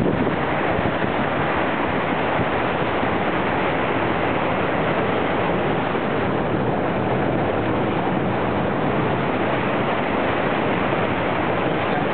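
Car driving through deep floodwater: a steady rushing of water around the car, with no break or change.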